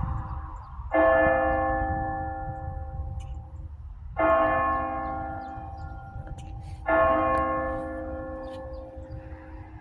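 Church bell striking noon: three slow strokes about three seconds apart, each ringing out and slowly fading, with the last of an earlier stroke dying away at the start.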